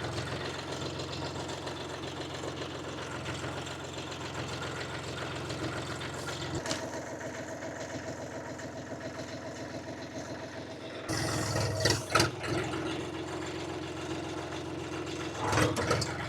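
Small diesel tractor engine of a 25 hp UHI 254 idling steadily, its tone shifting about six and a half seconds in. It gets louder from about eleven seconds, with a few sharp knocks around twelve seconds and again near the end.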